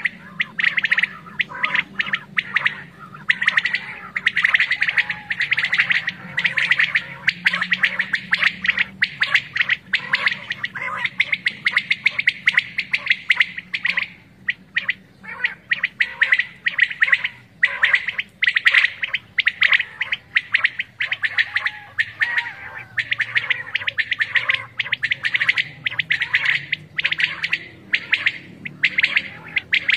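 Quails calling from cloth-covered decoy cages: many short, sharp calls repeating quickly and overlapping into a dense chorus, with a brief break about halfway through. These are caller birds used to lure wild quail in for a hunt.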